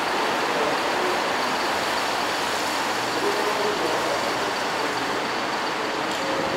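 Tokyu Bus city bus driving past on a wet road, its engine running steadily under an even wash of traffic noise.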